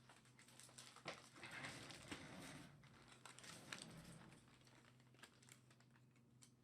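Faint crinkling and rustling of packaging with scattered small clicks and taps as a trading-card box is unwrapped and opened by hand, busier in the first half and thinning out after about four seconds. A low steady hum sits underneath.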